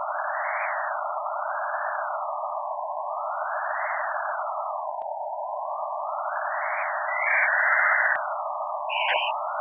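Image-to-sound synthesis: a mountain-range picture played as a dense cluster of synthesized tones in the mid range, its top pitch edge rising and falling in jagged peaks. About seven seconds in, a duck silhouette plays as a louder, higher patch of tones for about a second, and near the end a small tree-shaped image gives a short high burst.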